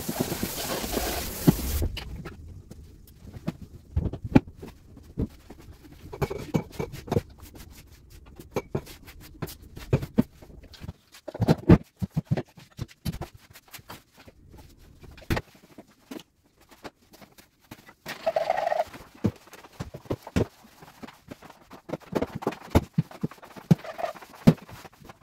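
A short hiss of running water that cuts off about two seconds in, then scattered knocks, clicks and clatter of cleaning up around a plastic grooming tub and a tiled floor, with a brief squeak about two-thirds of the way through.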